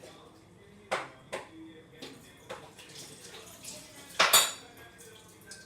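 Dishes and utensils clinking and knocking while a slime-mixing container is washed up: a few separate sharp knocks, the loudest a ringing clink about four seconds in.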